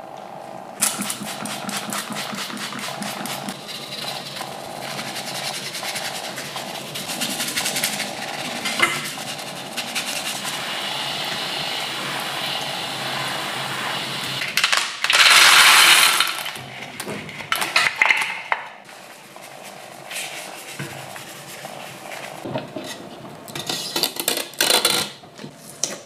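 A rusty sheet-metal canister being handled and worked on: a long run of rapid clicks, then a brief loud hiss about halfway through, and a few sharp scraping sounds near the end.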